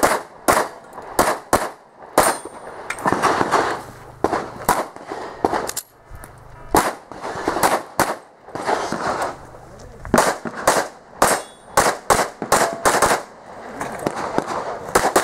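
Pistol shots fired in quick pairs and strings during an IPSC practical shooting stage, with short pauses between the strings; each shot trails off in a brief echo.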